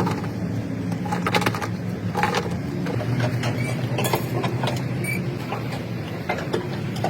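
Workshop noise: a steady low machine hum with scattered short metallic clicks and knocks.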